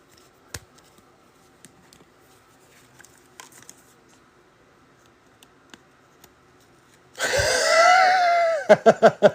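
Faint scattered clicks and rustles of trading cards and packs being handled. About seven seconds in, a sudden loud, wavering voice-like sound lasts about a second and a half, followed by short choppy vocal sounds.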